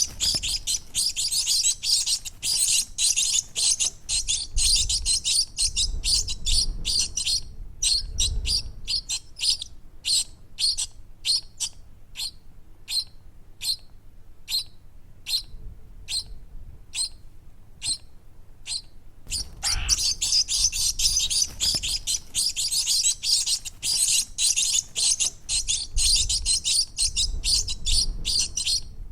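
Baby birds chirping: a dense run of rapid, high chirps that thins out after about seven seconds to single chirps roughly once or twice a second, then turns dense again about two-thirds of the way through.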